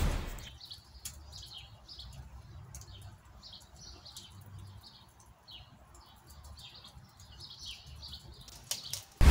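Small birds chirping, many short high chirps one after another, over a faint low rumble. A loud whoosh fades out in the first half second.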